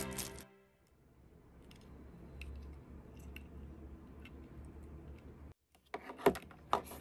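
Clear plastic bag crinkling, with light clicks from handling a plug-in power adapter and its coiled cord. A quick cluster of sharper crackles comes near the end. Background music fades out at the very start.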